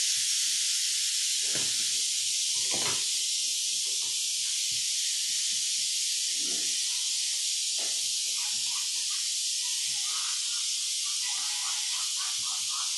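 A steady, high-pitched hiss, with a few faint knocks and distant voices underneath.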